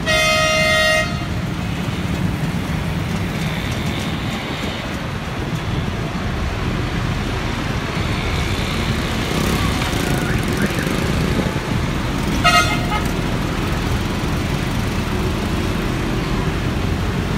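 Busy road traffic with a large coach's diesel engine running close by, a steady low rumble. A vehicle horn sounds for about a second at the start and again briefly about twelve seconds in.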